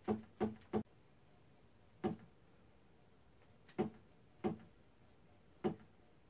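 Stepper motor driving a CNC-converted mini mill's X-axis table in single jog steps: seven short clicks at uneven intervals, one for each incremental move in step mode.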